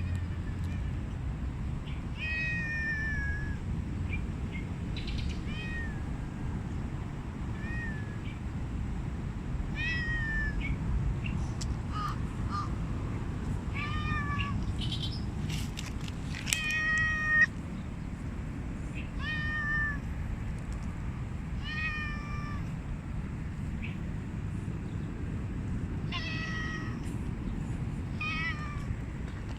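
Stray cat meowing repeatedly, about a dozen short calls every second or two, many falling slightly in pitch, the loudest and longest about two-thirds of the way through. A steady low rumble runs underneath.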